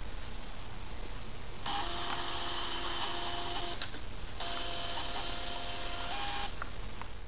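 O'Neil 4T portable thermal printer printing, its paper-feed mechanism running with a steady whine in two runs of about two seconds each, with a short pause between them. A steady low background noise runs underneath.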